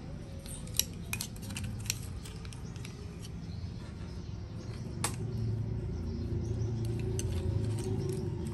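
Wooden tableware being handled and unpacked: scattered light clicks and taps, a sharper knock about five seconds in, with a low steady hum coming in around the same time.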